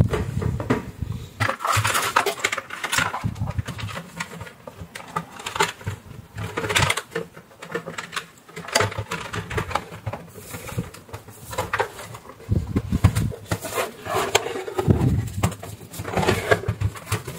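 Hard plastic parts of a Ninja blender's housing being handled and fitted together, with irregular knocks, clicks and scraping rustles.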